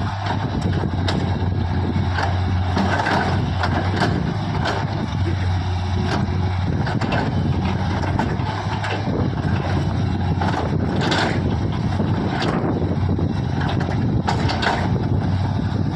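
Diesel engine of a JCB earthmoving machine running steadily with a constant low hum, with occasional short sharp knocks over it.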